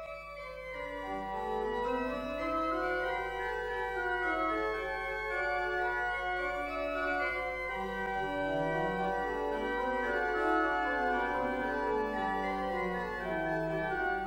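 Organ playing slow, held chords in several parts. It swells in over the first couple of seconds, and a lower, moving bass line joins about halfway through.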